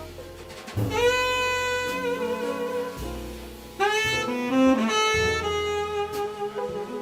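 Small jazz band playing: a saxophone carries the melody in long held notes, each phrase opening with a scoop up into the note and a slight vibrato, with a bass line underneath. A new phrase comes in about a second in and another about four seconds in.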